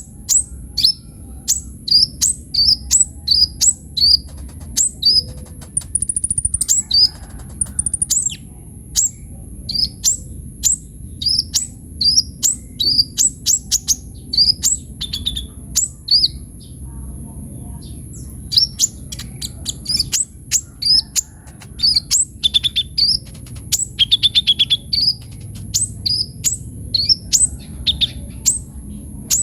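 A sunbird, the 'kolibri ninja' of Indonesian bird-keepers, singing vigorously with its full repertoire: a fast, unbroken run of short, high, sharp notes, most sweeping downward, about two or three a second, with a few quick trills mixed in.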